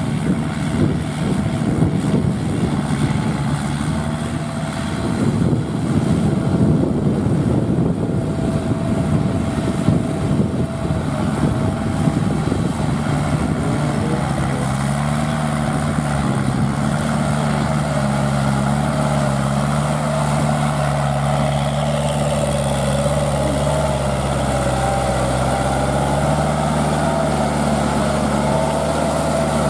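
Kubota L5018VN tractor's 50 hp four-cylinder 2.4-litre diesel engine running under load while driving a rear rotary tiller through dry paddy stubble. The sound is rough and noisy for the first dozen seconds, then settles into a steady engine drone with a wavering higher tone above it.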